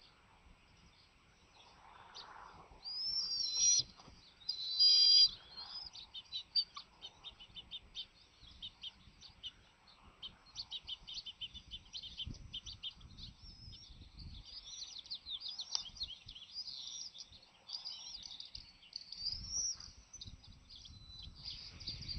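Bald eagles calling on the nest: two loud, sweeping high whistles about three and five seconds in, followed by a long run of quick, high chirps and twittering.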